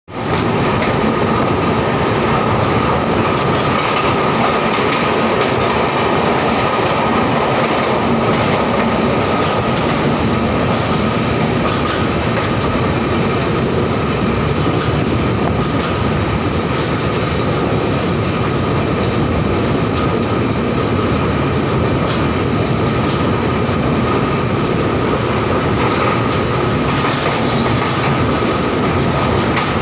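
Passenger train running at speed through a tunnel, heard from an open carriage door: a loud, steady rush of wheels on rails, with a faint steady high whine running through it and occasional clicks.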